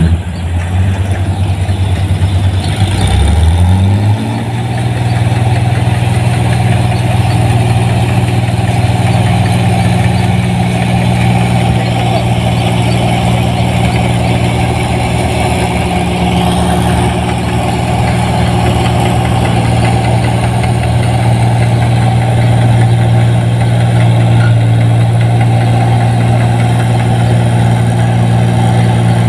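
New Holland 1545 combine harvester's diesel engine running under load, revving up about three to four seconds in and then running steadily at working speed.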